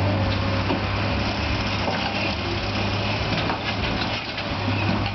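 Heavy truck engine running steadily with a deep low hum while pulling a loaded low-loader trailer slowly away over rough ground.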